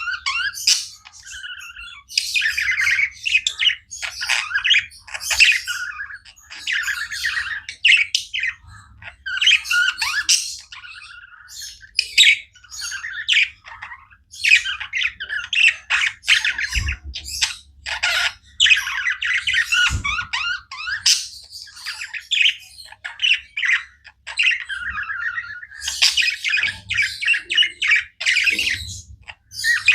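Several budgerigars chirping, warbling and squawking non-stop in quick, overlapping runs, with two dull thumps near the middle.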